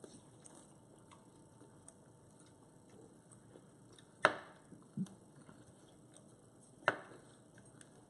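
Quiet room with a few sharp clicks: two loud ones about four and seven seconds in, and a softer knock with a short low thud between them.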